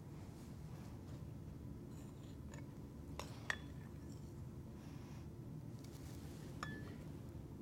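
A few faint, sharp clinks of kitchenware knocking against a bowl, over a steady low room hum.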